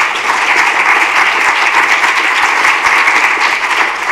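An audience of a few dozen people applauding steadily.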